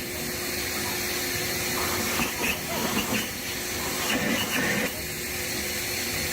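A steady, loud hiss, like rushing water or air, that cuts off suddenly just after the end.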